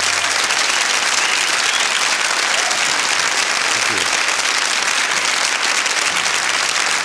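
Concert audience applauding at the end of a song, steady and loud throughout.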